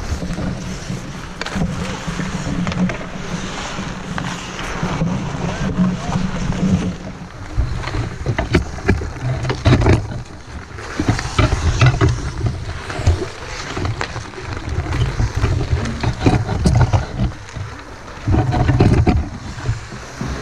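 Wind and motion rumble on a head-mounted camera's microphone as a hockey player skates across outdoor ice, followed by scattered knocks and clacks of stick, skates and boards as he steps into the bench.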